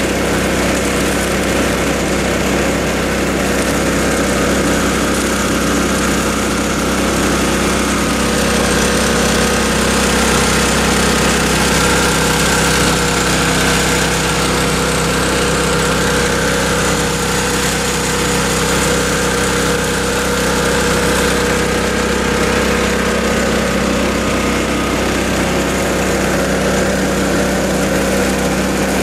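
Small gas engine of a 2-inch portable water pump running steadily at constant speed, with water washing down a sluice box.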